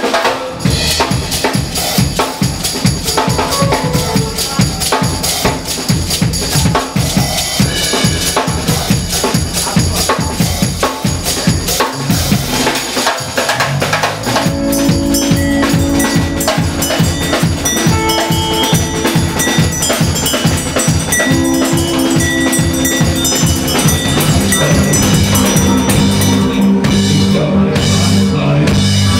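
Live electronic dance music played by a band with a drum kit: a fast, steady drum beat over electronic sounds. About 13 s in there is a short break, after which sustained low synth notes join the beat.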